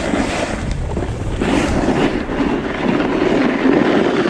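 Snowboard sliding and scraping over snow at speed, a steady rough rushing sound, with some wind on a foam-covered GoPro microphone.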